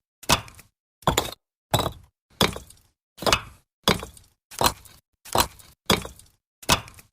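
Bricks being stacked: a hard brick-on-brick knock about every 0.7 seconds, ten in all, each with a short gritty scrape as the brick settles.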